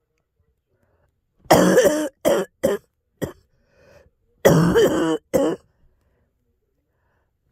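A girl coughing in two fits: the first about a second and a half in, a long cough followed by three shorter ones; the second about four and a half seconds in, a long cough followed by one short one.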